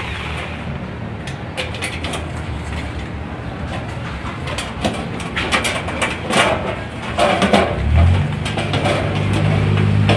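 Thin painted sheet-metal gutter being handled and bent, rattling and clanking again and again. A low steady hum comes in about eight seconds in.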